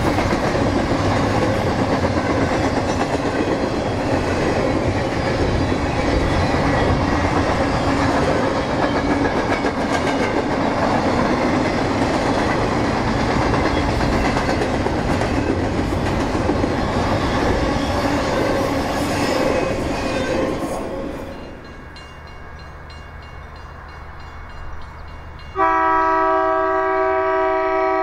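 Double-stack intermodal freight train rolling past, a steady rumble with wheel clatter, fading as its last cars clear about three-quarters of the way through. A few seconds later an approaching locomotive sounds its multi-note air horn, a loud steady chord held near the end.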